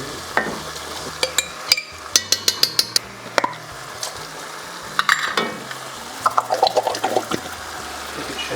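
Beans being stirred into a pan of cooked-down tomatoes, peppers and onions, with quick sharp clinks of the spoon against the pan, a rapid run of them about two seconds in.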